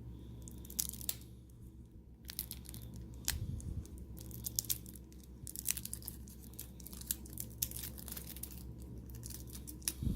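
Plastic wrapper of a trading-card pack being torn and crinkled by hand, with irregular sharp crackles that grow denser from about two seconds in. The wrapper has no tear slit and is being forced open.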